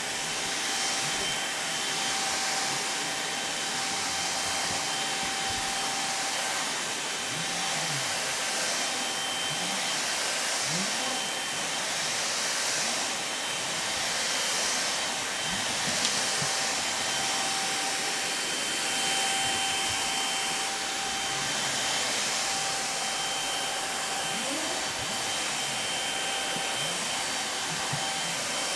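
Vacuum cleaner running steadily: a constant rush of air with a steady high motor whine over it.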